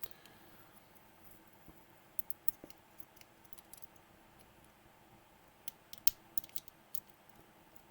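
Scattered small metal clicks and scrapes of a tool working at the retaining clip on a padlock's cylinder, coming in two irregular clusters.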